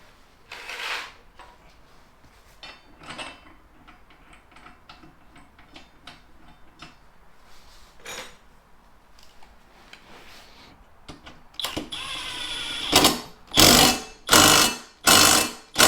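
Metal parts handled with scattered clinks and knocks as a new mower blade is fitted, then near the end a power tool runs briefly and tightens the blade bolt in four short loud bursts.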